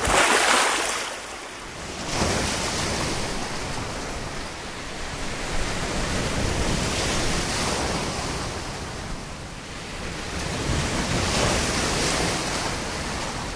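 Sea waves breaking and washing in shallow surf, the rush of water swelling and fading every few seconds.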